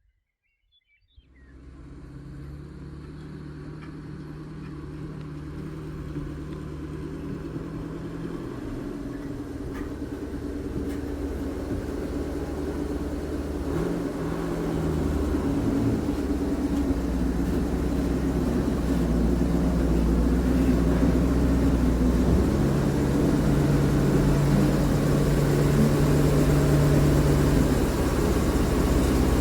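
An engine running, coming in about a second in and growing steadily louder, with its pitch shifting a couple of times.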